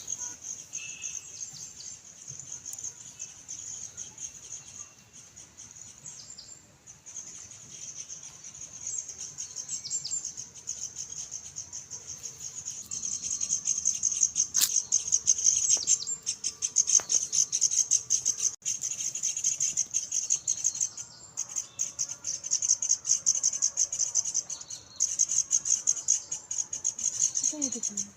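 Insects chirring: a dense, high, rapidly pulsing buzz that swells louder about halfway through, with a few faint bird calls beneath it.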